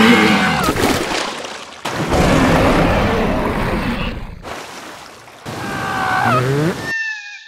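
Cartoon larvae's wordless, squeaky sliding cries, once at the start and again about six seconds in, with a rushing noise between them and a short high tone that cuts off near the end.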